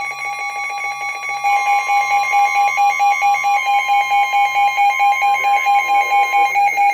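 Weather radio alert: a steady NOAA Weather Radio warning alarm tone, joined about a second and a half in by a receiver's pulsing alert beep repeating several times a second. The steady tone fades after about three and a half seconds while the beeping keeps going.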